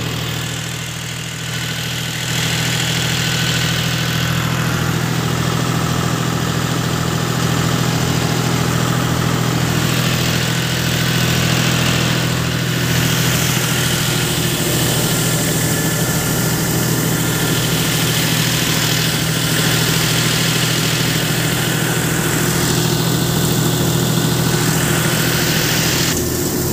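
John Deere diesel tractor running a multicrop thresher: a steady engine and machine drone with a strong low hum, getting louder about two seconds in.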